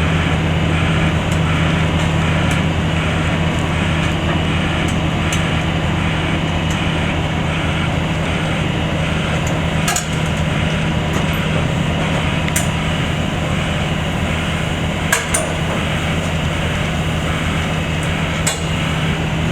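Demolition excavator's diesel engine running steadily under load, with a few sharp knocks and cracks of building material breaking as the structure is worked down.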